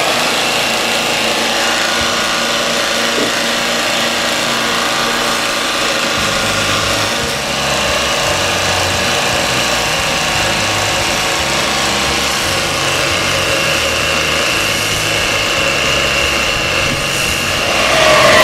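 Multitool belt grinder running with a compound-dressed finishing belt, polishing the steel end of a railway spike: a steady motor whine with an even grinding hiss of metal against the belt.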